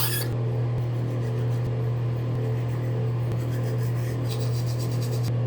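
A steady low mechanical hum, with a light rubbing or scratching sound about four to five seconds in.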